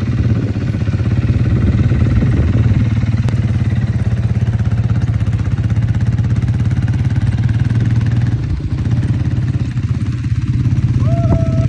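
ATV (quad bike) engine running steadily at low, even revs, with no revving up.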